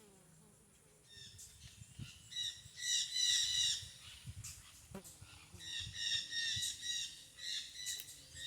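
A bird calling over and over in high, pitched calls, in two bouts beginning about a second in. This is the strange noise in the woods near a wild bees' nest, which the fisherman guesses may be a bird attacking the bees.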